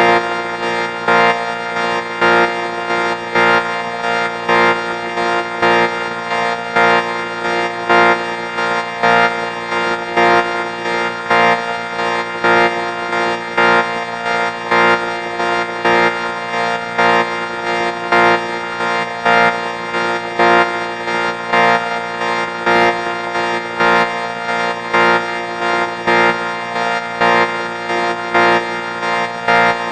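A looped electronic sound effect: a dense, buzzy organ-like chord held on one pitch, swelling in regular pulses a little under a second apart.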